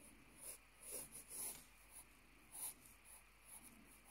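Faint scratching of a pencil on lined notebook paper: short, irregular sketching strokes.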